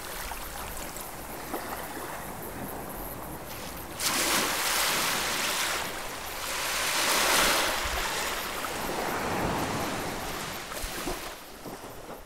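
Small waves on a calm sea washing up a sandy beach: a steady wash of surf, with a larger wave surging in about four seconds in, swelling and then easing, before the sound dies away near the end.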